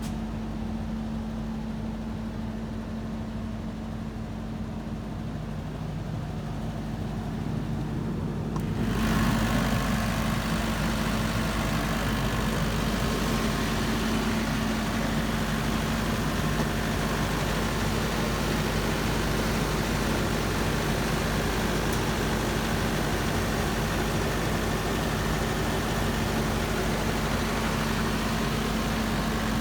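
Perkins diesel engine of a 110kVA generator set running at a steady speed with a constant hum. About nine seconds in, the sound suddenly becomes louder and brighter, then holds steady.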